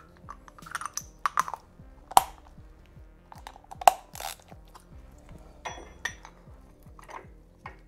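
Metal clicks and clinks as an oil filter wrench and its socket extension are handled and fitted together, with a few sharper knocks about 2 and 4 seconds in. Faint background music underneath.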